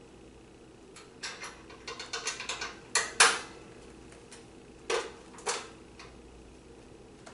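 Metal parts of a spring-loaded hood filter locking handle clicking and clinking against a stainless steel baffle filter as it is fitted by hand. A run of light clicks is followed by two louder clanks about three seconds in, and two more clinks a couple of seconds later.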